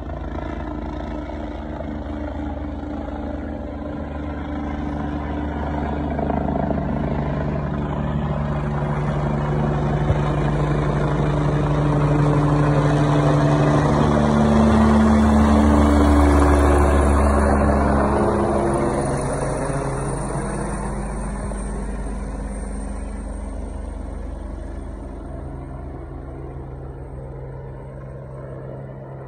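Leonardo helicopter flying low directly overhead: rotor chop and a high whine grow louder and peak about halfway through, then drop in pitch and fade as it moves away.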